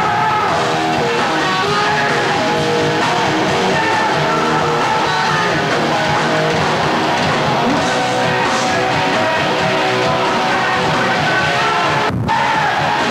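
Heavy metal band playing live, with distorted electric guitar to the fore over bass and drums, and no vocals.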